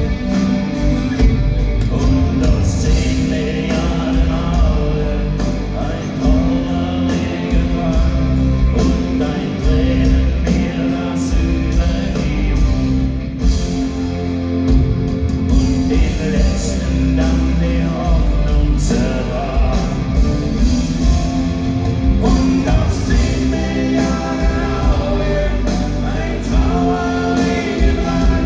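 Live rock band playing a song with a lead singer: electric guitars, keyboards and drums. It is heard from the audience in a large hall.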